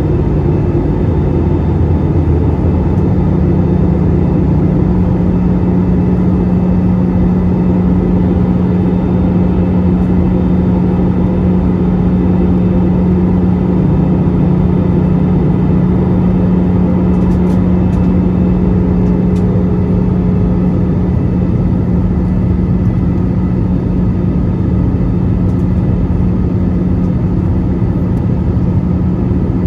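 Airbus A320-214's CFM56-5B jet engines and airflow heard inside the passenger cabin: a loud, steady drone with a constant low hum.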